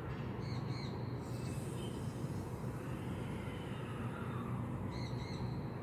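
Airsoft gas hissing steadily from an inverted gas can into the fill valve of an AAP-01 gas-blowback pistol magazine. The continuing hiss means the magazine is still taking gas and is not yet full.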